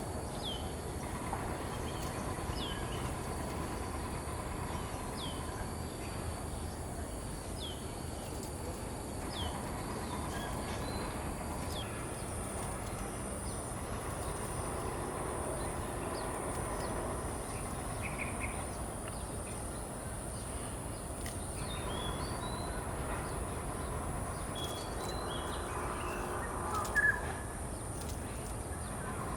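Birds calling outdoors: short, high, downward-sweeping chirps repeat every second or two, then come again scattered near the end. Under them runs a steady low background rumble, and there is one brief louder knock late on.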